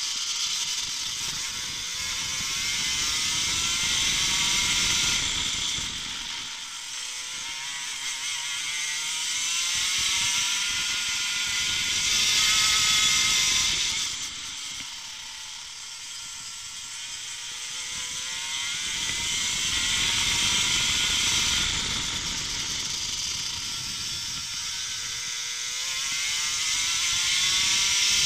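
Water-cooled two-stroke racing kart engine at full race pace, heard from the seat. Its note climbs high through the revs on the straights and falls away into the corners, three times over.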